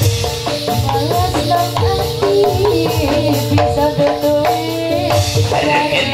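Live jathilan dance accompaniment music: drums beating a steady rhythm under a melody of pitched instruments, with a jingling rattle.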